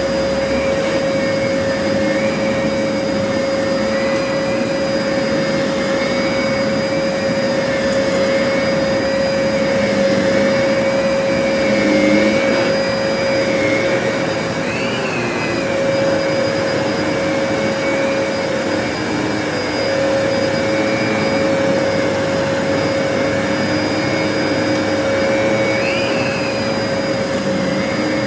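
Vacuum cleaner running steadily with a constant motor whine, picking up rice from a low-pile carpet; the pitch shifts briefly about halfway through and again near the end.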